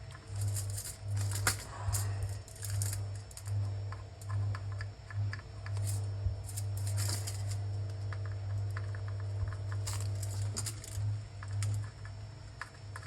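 Small clicks, taps and scrapes of soldering tools working on a circuit board, over a low electrical hum. The hum pulses on and off about twice a second, holds steady for a few seconds in the middle, then pulses again.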